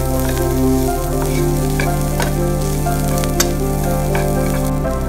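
Chopped onions sizzling in hot oil in a non-stick pan, stirred with a wooden spatula that clicks against the pan now and then. Soft background music with held low notes plays underneath.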